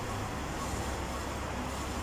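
Domus 8 kg washing machine running a full load: a steady mechanical rush with a low motor hum.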